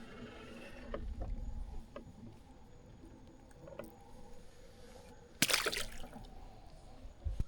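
A small hooked crappie splashing at the water's surface as it is landed: one short splash about two-thirds of the way in, with small knocks and handling rumble around it and a low thump near the end.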